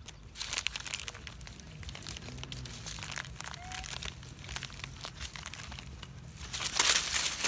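Plastic snack bag crinkling and rustling in a long-tailed macaque's hands as it pulls the bag to its mouth for the peas inside. The crinkling is loudest in a burst near the end.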